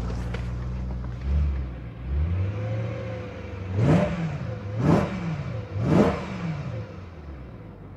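BMW S65 V8 engine running, its idle changing about two seconds in, then three quick throttle blips about a second apart, each rising and falling in pitch.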